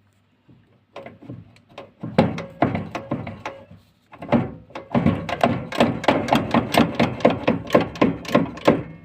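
Rapid repeated knocks on an Indesit washing machine's shock absorber as it is worked loose, with a slight metallic ring. The knocks start sparse, pause briefly about four seconds in, then come about four to five a second.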